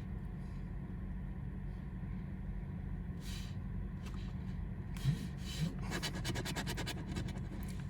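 Scratching the coating off a lottery scratch-off ticket in short rasping strokes, a few at first, then a quicker run over the last few seconds, over a steady low hum.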